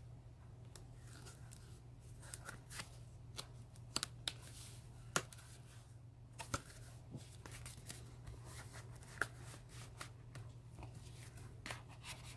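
Pages of a handmade paper and chipboard mini album being turned and handled: scattered soft flicks and taps of cardstock, over a low steady hum.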